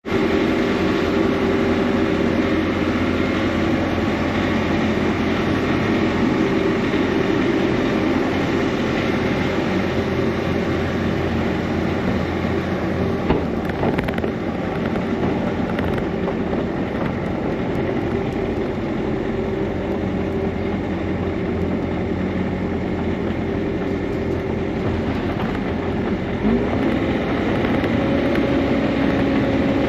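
Bobcat E55 mini excavator's diesel engine running steadily under work, with a single knock about 13 seconds in and a change in the engine note near the end.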